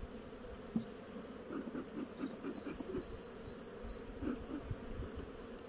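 Honeybees buzzing around an open hive, a steady hum, with a short run of high chirps about halfway through.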